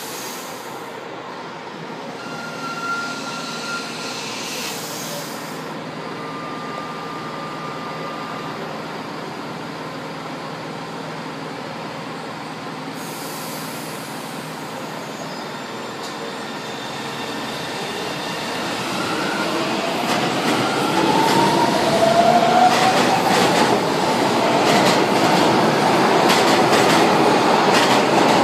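A São Paulo Metro Line 1 train running along the platform, then pulling away and getting louder. An electric traction-motor whine rises in pitch from about two-thirds of the way through, with quick clacks of the wheels over the rail joints.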